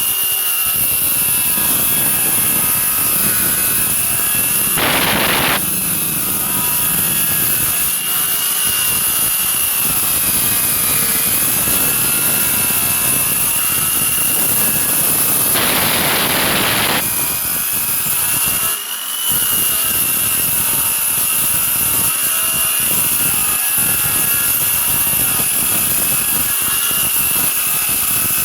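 Circular saw motor with a 7-inch 24-tooth blade, mounted as a table saw, running steadily with a wavering high whine. Two short spells of added noise come about five seconds in and around sixteen seconds in.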